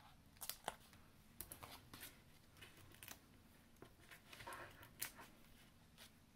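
Faint, scattered clicks and light rustles of hands handling paper and a plastic sheet as foam adhesive dimensionals are picked off their backing sheet and pressed onto the back of a card-stock banner, with a brief rustle about four and a half seconds in.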